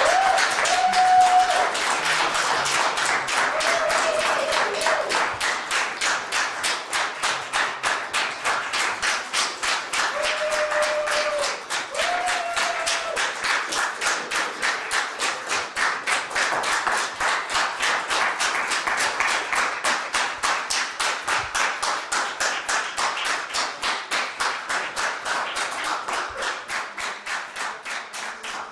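Audience applause that settles into rhythmic clapping in unison, about three claps a second, from about halfway through, then fades near the end. A few short held calls rise above the clapping in the first half.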